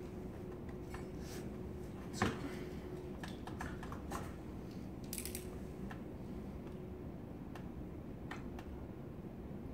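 Scattered small clicks and taps of hands working vinyl film at the top edge of a glass panel, with a sharper click about two seconds in and a short hiss about five seconds in, over a steady room hum.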